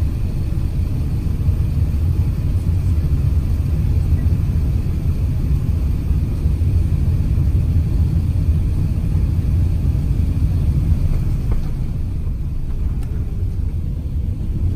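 Steady low rumble inside the cabin of an Airbus A380 taxiing on the ground: engine and undercarriage noise heard from a window seat.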